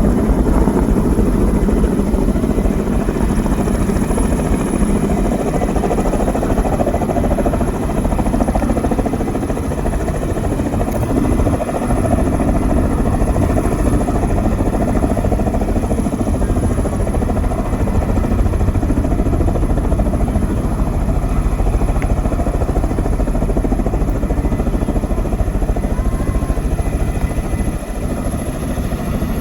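Helicopter hovering: steady, unbroken rotor and engine noise.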